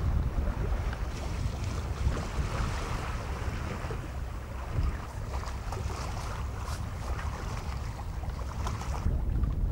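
Wind rumbling on the microphone over the steady hiss of sea water washing past a sailboat under way. The higher hiss thins out near the end.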